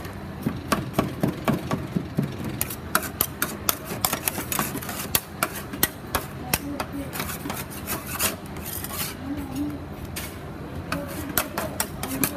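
Two metal spatulas chopping and scraping a freezing ice cream mix on a chilled steel cold plate: quick, irregular clacks of the blades striking the plate, with scraping in between.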